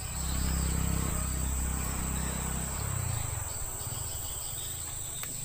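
Insects droning in a steady high-pitched tone, with a low rumble that is strongest at the start and fades away over the next few seconds.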